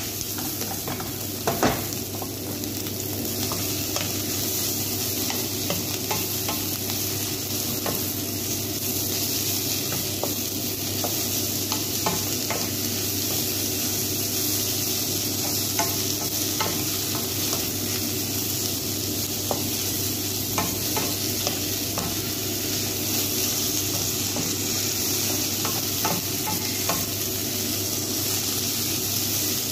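Chicken strips, onion and bell peppers sizzling steadily in a nonstick frying pan while being stirred with a wooden spatula, which knocks and scrapes against the pan now and then, with one sharper knock about a second and a half in.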